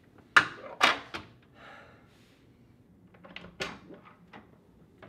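An interior door closing: two sharp knocks from the door and its latch. About three seconds later come softer clicks and a knock as it is worked open again.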